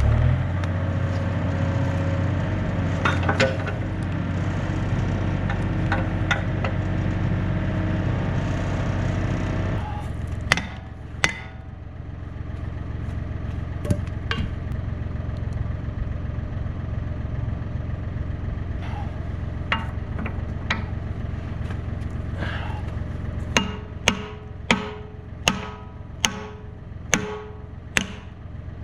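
Yanmar B37 excavator's diesel engine running steadily, then dropping away about ten seconds in. After that come sharp metallic knocks with a short ring, a few scattered at first, then a regular series of about one a second near the end.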